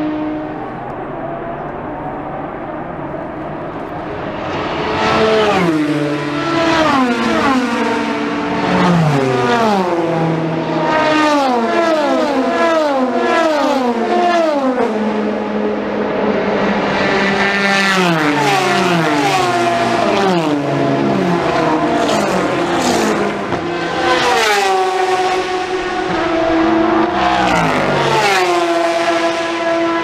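Several endurance race cars (WEC prototypes) passing in a group, their engines loud and dropping in pitch in quick repeated steps as they shift down, one car after another. Near the end one engine is left holding a steadier note.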